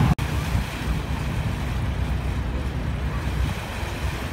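Steady low rumble of wind buffeting the microphone over a boat's engine, recorded aboard a moving speed boat ferry; the sound cuts out for an instant just after the start.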